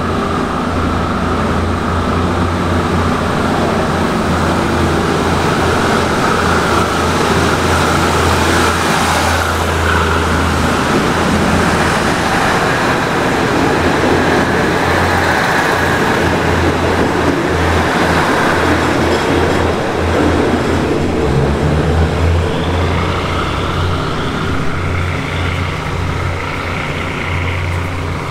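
NKF-class diesel railcar train pulling out, its engines running with a steady low drone over the noise of the coaches rolling past on the rails.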